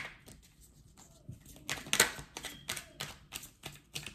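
Tarot cards being handled and shuffled: a run of quick, soft clicks and flicks at uneven spacing, the loudest about two seconds in.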